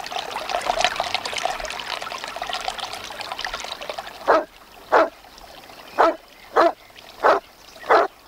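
A St. Bernard lapping water at a trickling stream, then barking six times, short barks less than a second apart.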